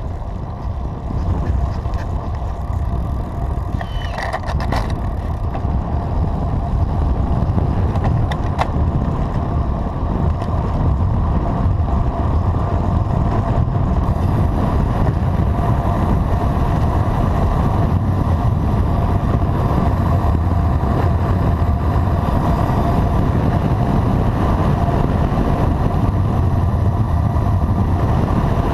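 Wind rushing over a bike-mounted action camera's microphone, mixed with road bike tyre noise on asphalt, as the bike descends at speed up to about 40 km/h. It builds over the first several seconds as the bike picks up speed, then holds steady, with a couple of brief clicks in the first ten seconds.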